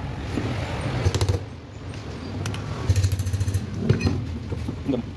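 A screwdriver and loose screws clink and tap against the metal rear housing of a car alternator as its regulator plate is unscrewed. The clicks come a few at a time, loudest about a second in and again around three to four seconds, over a steady low rumble.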